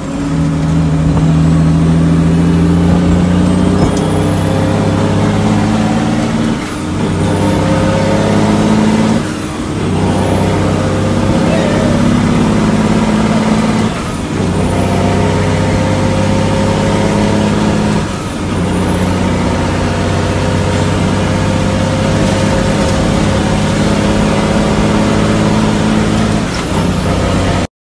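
International heavy truck's diesel engine, heard from inside the cab, pulling up through the gears of its 18-speed manual transmission: the engine climbs in pitch, then dips briefly at each of about five gear changes before climbing again. A high whine rises and falls with it.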